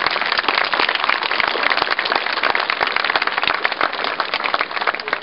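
Seated audience applauding a speaker to the podium, the clapping thinning out near the end.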